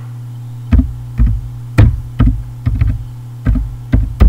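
Computer keyboard being typed on: about nine separate keystrokes with a dull thump to each, at an uneven pace, as a word is typed. A steady low electrical hum runs underneath.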